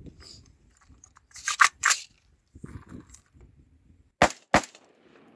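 Magazine clacking into an AR-15's magazine well and being tugged in a pull test to check that it is seated, then two rifle shots about a third of a second apart near the end, with a short echo after them.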